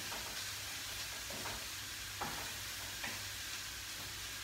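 Grated carrot and onion sizzling in a frying pan as they are stirred, with the stirring utensil knocking against the pan three times.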